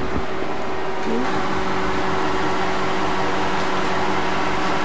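Oliebollen frying in the hot oil of a deep fryer: a steady sizzle, with a steady hum underneath.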